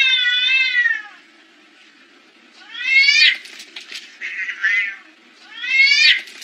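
Two cats yowling at each other in a standoff and brief fight: a long wavering yowl at the start, then two rising yowls about three seconds apart, each followed by a quick run of sharp scratchy clicks and a shorter wavering growl.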